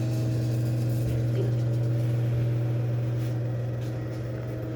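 Motor of a powered lift examination table humming steadily as the table rises.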